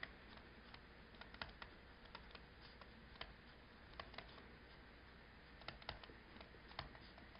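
Faint, irregular taps and clicks of a stylus on a tablet screen during handwriting, a few per second, over near-silent room tone.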